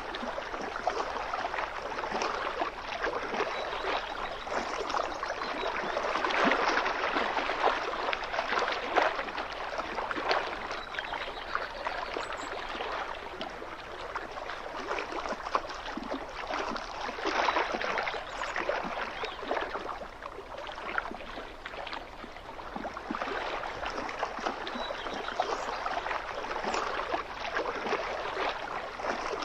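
Small waves lapping and splashing against a lake shoreline, with gurgling and trickling water, swelling and easing in loudness every few seconds.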